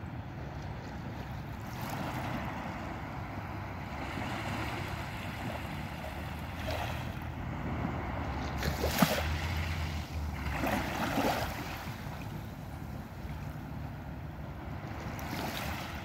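Small, gentle waves lapping and washing up a pebbly sand beach, one soft wash after another, the loudest about nine seconds in, over a low steady rumble.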